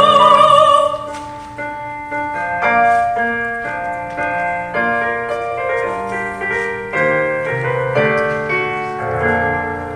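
A sung note with vibrato ends about a second in, then a piano accompaniment plays alone: a run of separate notes and chords, unevenly paced.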